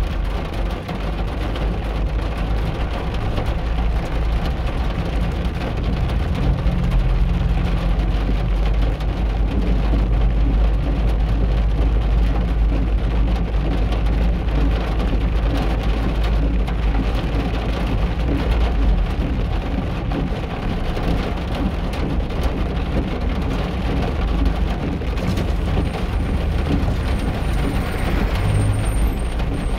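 Steady rain and city street traffic: vehicle engines and tyres going by on wet road, with a low rumble throughout. A thin, high squeal comes in near the end.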